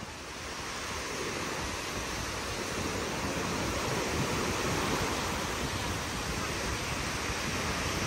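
Sea surf washing onto the beach, a steady hiss of waves without a break.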